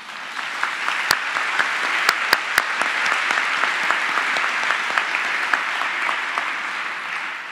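Audience applauding, swelling quickly at the start and dying away near the end, with a few sharper claps standing out early in the applause.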